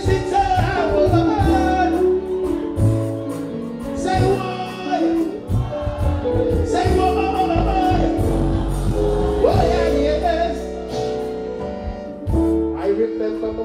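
Live reggae vocal performance: a male singer singing into a microphone over a loud backing track with a heavy bass line and drums, through the stage sound system.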